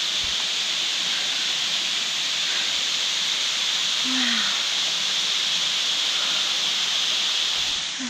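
Waterfall pouring down a rock face into a pool: a steady, hissing rush of falling water that drops away near the end.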